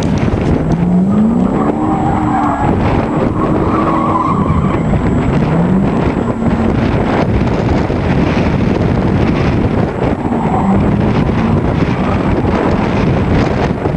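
Ford Fiesta engine revving hard, its pitch climbing several times as it is driven sideways, with tyres skidding on the skid pan over a constant rushing noise.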